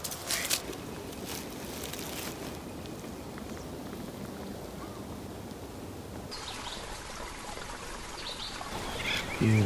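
Footsteps swishing and crackling through grass and leaf litter for the first couple of seconds, then a steady outdoor hiss. Near the end, small birds chirp in a quick repeated pattern, and a short voice sound is the loudest moment.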